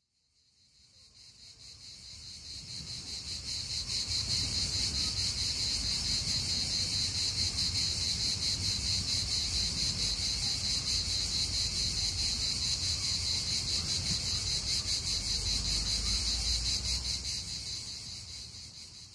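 A dense chorus of chirring insects, high-pitched and rapidly pulsing, with a low rumble underneath; it fades in over the first few seconds and fades out near the end.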